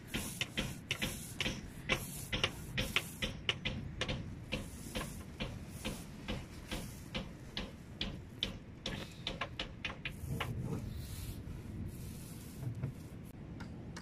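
Paint roller being worked back and forth over a pumpboat's hull, giving a run of short clicking ticks, about three a second at first and fewer later.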